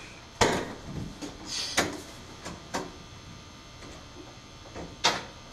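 A few scattered knocks and clunks at irregular intervals, the loudest just under half a second in, with quieter ones around two, three and five seconds in.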